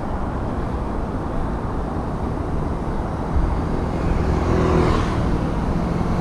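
Steady low rumble of wind and road noise on an action camera on a mountain bike climbing a paved road. From about three and a half seconds in, a motor scooter's engine grows louder as it approaches.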